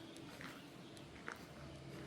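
Faint footsteps of a person walking on a path, two distinct steps.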